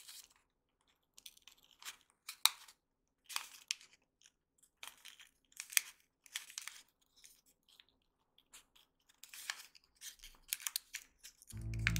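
Origami paper rustling and crinkling in many short, sharp bursts as a folded paper strip is bent and one end tucked into the other to close a heart-shaped box. Music starts just before the end.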